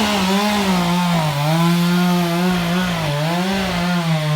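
Two-stroke chainsaw running at high speed, cutting wood. Its engine pitch dips and recovers repeatedly as the chain loads in the cut.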